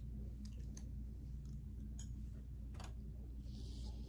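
Quiet room tone: a steady low hum with a few faint clicks and a short soft hiss near the end.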